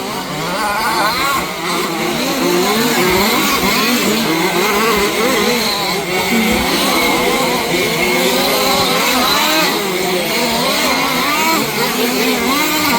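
Several 1/5-scale two-stroke petrol RC off-road cars racing together, their engines revving up and down over one another without a break.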